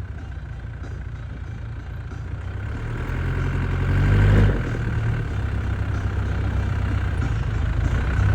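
Off-road vehicle's engine pulling under load, rising in level for a couple of seconds, easing off suddenly about four and a half seconds in, then running on steadily.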